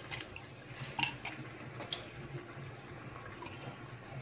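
Thick gravy sliding and plopping from a bowl into a pot of cooking chicken, over a soft steady sizzle, with a couple of light clicks from the spatula against the bowl about one and two seconds in.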